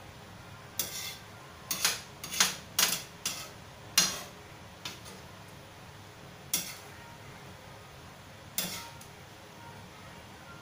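Metal cooking utensils clinking and knocking against an aluminium wok and a plate: a quick string of sharp clinks in the first four seconds, then three or four more spaced a second or two apart, over a steady faint hiss.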